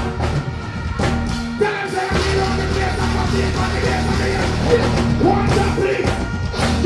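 Live dancehall music played loud through a concert PA, a heavy bass line under a performer's voice on the microphone.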